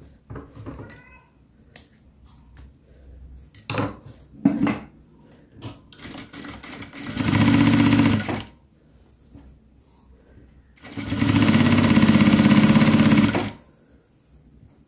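Zoje industrial sewing machine stitching fabric in two runs, one of about a second and a half and a longer one of about two and a half seconds. A few light clicks and knocks of fabric and machine handling come before the first run.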